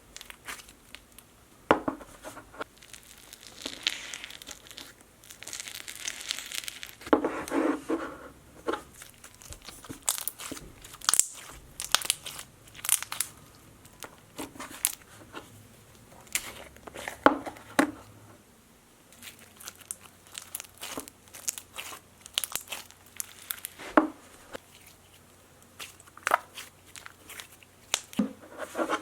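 Hands squishing, poking and stretching slime: irregular sharp clicks, pops and crackles, with a denser crinkling stretch about four to eight seconds in.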